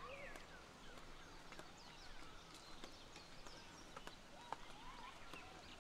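Quiet outdoor ambience of many small birds chirping, with short rising and falling chirps overlapping throughout, and a few faint scattered clicks.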